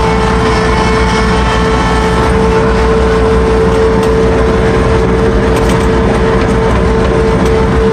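Ransomes FrontLine 723D diesel mower's engine running steadily, a low rumble with a steady high whine over it.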